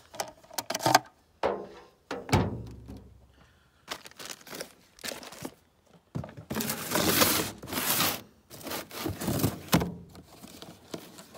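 Handling noise: several knocks and a thump as a chainsaw is set down on a steel deck, then a few seconds of cardboard rustling and scraping as a box is put down and its tape is picked open.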